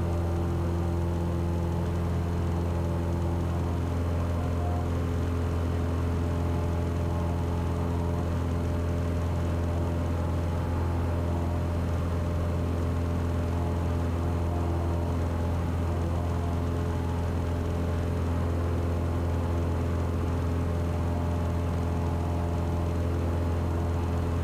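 Cessna 182 piston engine and propeller running steadily at full takeoff power, a constant low drone through the climb-out after liftoff.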